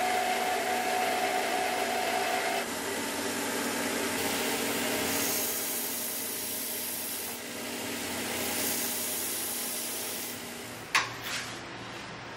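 Belt grinder running with a steel knife blade ground against the belt on its small contact wheel, a steady grinding tone that stops about two and a half seconds in while the motor and belt keep running. About eleven seconds in, a sharp metallic clank and a lighter second one as a sheet-metal box lid is opened.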